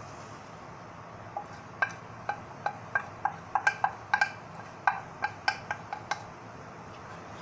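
About fifteen short, ringing clinks at irregular intervals, all at the same pitch, like a utensil striking cookware, starting about a second and a half in and stopping about a second before the end, over a steady low hiss.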